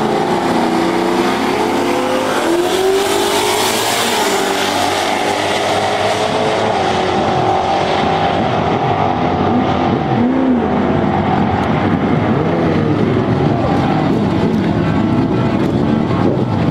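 Two drag-race cars launching off the line and accelerating hard down the strip, their engines climbing in pitch and dropping back at each gear change. After about six seconds the sound loses its brightness.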